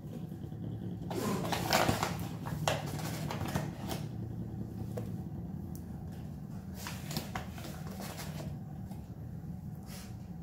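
Light knocks, rustling and scraping at a stand mixer's stainless steel bowl as flour is tipped in and a spatula works the dough, over a steady low hum.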